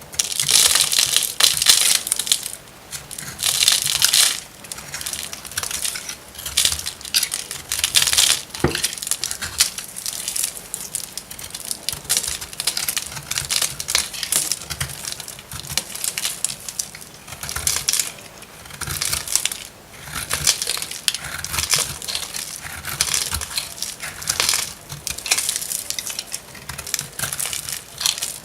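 A knife cutting through very dry bar soap: repeated crunchy, crackling strokes as the blade crushes and breaks the brittle soap, loudest in the first few seconds and then coming in shorter clusters.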